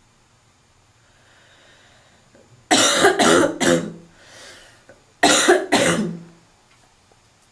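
Person's barking smoker's cough, in two fits: three harsh coughs in quick succession, a breath in, then two more coughs.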